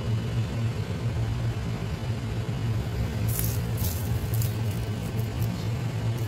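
Steady low rumble, with a few short high hissing sounds between about three and five and a half seconds in.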